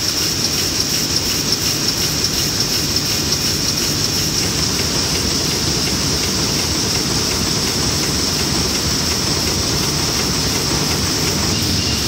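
Sheet-fed printing press running: a steady mechanical clatter with a fast, even beat over a steady high hiss.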